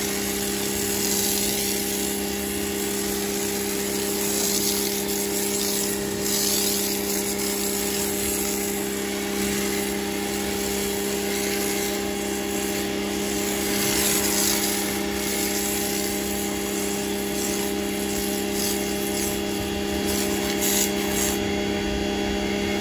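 Greenworks C30 electric pressure washer running steadily, its motor and pump giving a constant hum, while a foam cannon on the lance sprays snow foam with a hiss that swells and fades several times.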